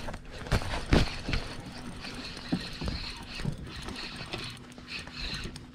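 Irregular knocks and clicks from rod, reel and john boat handling while a hooked fish is reeled in, with a faint steady hum in the middle stretch.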